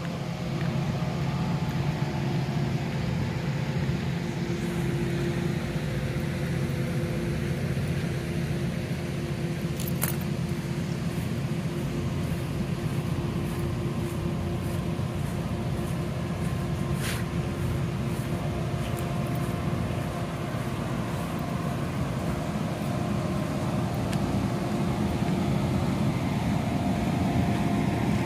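Steady low engine hum, unchanging throughout, with a couple of faint clicks partway through.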